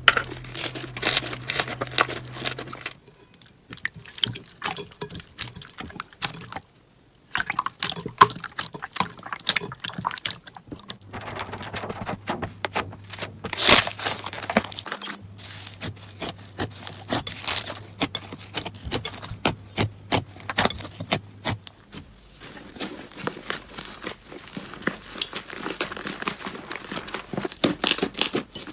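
Slime being squished, stretched and poked by hand: sticky crackling with quick irregular popping clicks. It comes in several short clips separated by brief quiet gaps.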